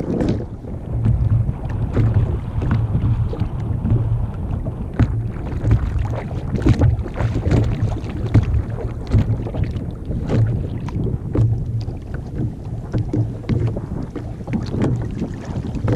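Wind buffeting the microphone in a steady low rumble, with small irregular splashes and laps of water around a sit-on-top kayak on open sea.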